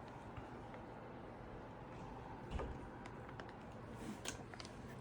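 Low room noise with a few faint clicks, one about two and a half seconds in and another near the end.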